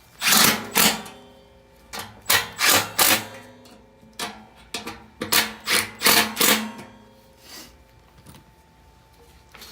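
Cordless drill/driver running in short bursts, about a dozen in the first seven seconds, driving home the three mounting screws of a replacement furnace blower motor.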